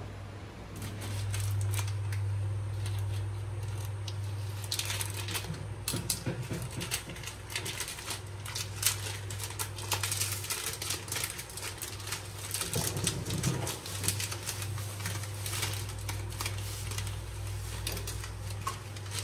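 Dry papery garlic skins crackling and clicking in quick irregular runs as garlic bulbs are broken apart and peeled by hand, over a steady low hum.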